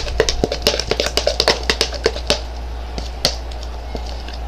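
A quick run of small sharp clicks and taps for about two seconds, thinning to a few single clicks, over a steady low hum.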